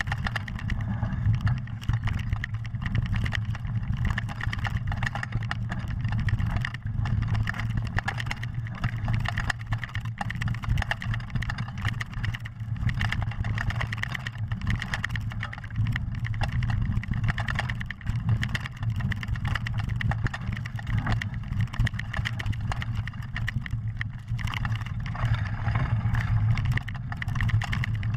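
Mountain bike descending a fast dirt downhill trail, heard from an onboard camera: a steady rush of wind and tyre noise with constant rattling and knocking over the bumps.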